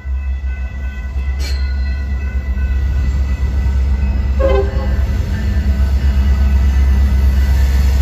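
BNSF freight train's GP60M diesel locomotives approaching: a deep, steady engine rumble that grows louder, with several faint steady tones above it.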